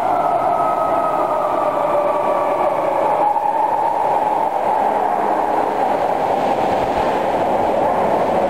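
Osaka Municipal Subway train pulling into an underground station: a steady rumble with a whine that falls slowly in pitch as the train brakes.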